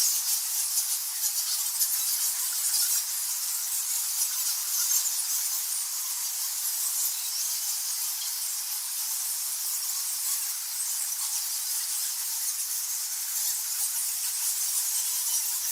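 Bats squeaking: a dense, unbroken chatter of rapid high-pitched squeaks and clicks, with no low sound under it.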